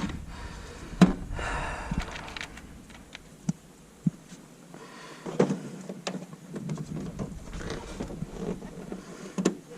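Rummaging through small hard parts: scattered clicks and knocks, with a louder knock about a second in and a brief rustle after it, as push-in fasteners are sorted through for ones that fit.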